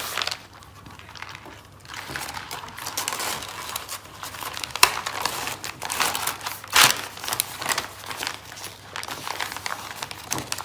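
Paper and leather rustling and crinkling as a handmade paper journal is handled and slid into a leather journal cover, with uneven handling noises and a couple of louder crackles.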